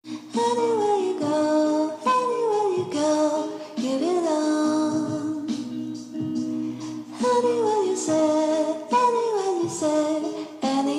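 Background music: a woman's singing voice in phrases that glide down in pitch, over a steady instrumental accompaniment.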